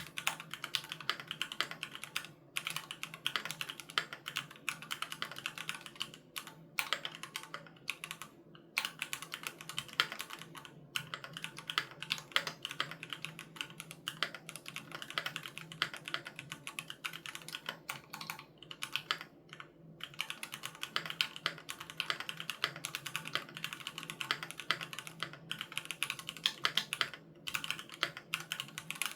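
Continuous typing on a Keychron Q3 Knob mechanical keyboard with Gateron G Pro Red linear switches: a dense run of keystroke clacks, with a few brief pauses between bursts.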